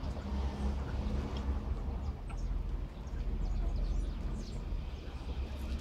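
Free-ranging young chickens calling: scattered short, high peeps and clucks over a steady low rumble.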